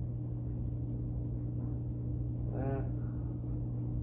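Steady low hum of a running laundry machine, with a short murmur from a man's voice about two and a half seconds in.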